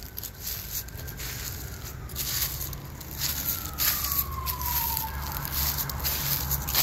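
Footsteps crunching and rustling through dry fallen leaves and brush, over a steady low traffic rumble. About three seconds in, a faint wail falls slowly in pitch for about two seconds.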